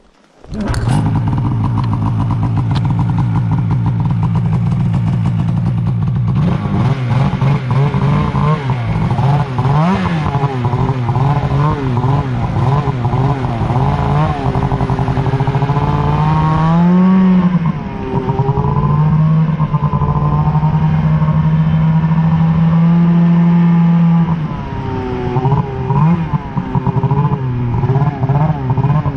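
Polaris RMK 800 snowmobile's two-stroke twin engine starting about half a second in and running steadily for a few seconds. It then revs up and down over and over as the sled rides off across the snow, the pitch rising and falling with the throttle.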